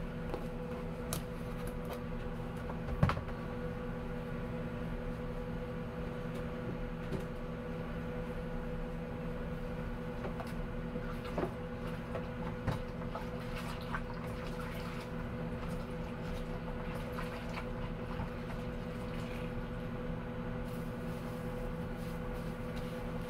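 Microwave oven running with a steady hum, while dishes are scrubbed with a sponge in soapy water in a kitchen sink, with scattered light clinks and a sharper knock about three seconds in.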